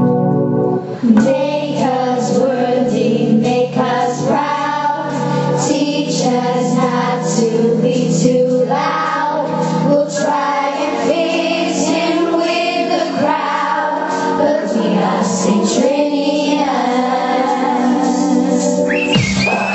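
A group of young voices singing together as a choir, over sustained organ-like keyboard chords.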